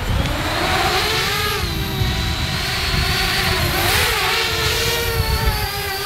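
Small lightweight quadcopter drone's motors spinning up to a whine as it lifts off from the snow, the pitch rising in the first second and then wavering as it climbs. A low rumble of wind on the microphone runs underneath.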